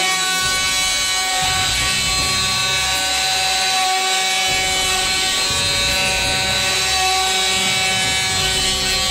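Electric plunge router running with a steady whine while its cutter mills a recess for a concealed hinge into timber, the cutting noise rising and falling a little as it is moved through the template.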